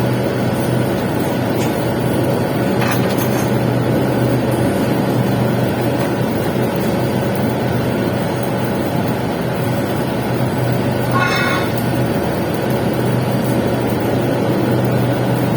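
Welding arc running steadily on a pipe joint during the capping pass: a continuous frying crackle over a low steady hum.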